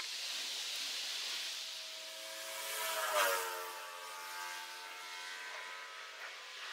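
A vehicle passing by: a steady hiss with a hum whose pitch drops as it goes past, loudest about three seconds in.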